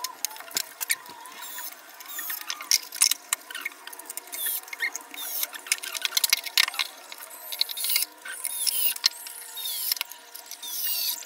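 Wooden panels of a small cat house being handled and fitted together: scattered clicks and light knocks of wood on wood, with small squeaks.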